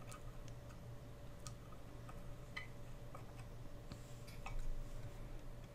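Faint, scattered small clicks and ticks of a screwdriver doing up the pointer screw on the tuning-capacitor drum of a NordMende Elektra 58 valve radio, over a low steady hum.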